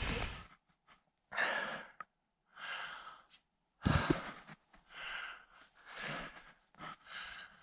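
A tired skier breathing hard near the microphone, about six heavy breaths roughly a second apart.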